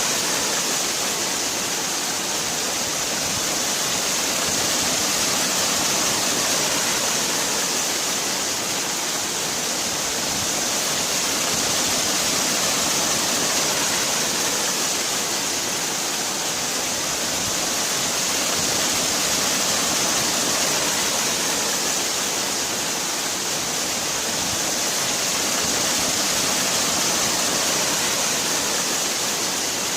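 Waterfall: a steady rush of falling water, swelling and easing gently every few seconds.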